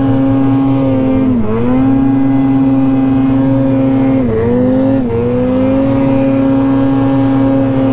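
Mountain snowmobile's two-stroke engine held at high revs under heavy load in deep powder, its pitch dipping briefly about one and a half seconds in and twice more around the middle before picking back up. The revs fall away right at the end as the sled bogs down and sticks in the snow.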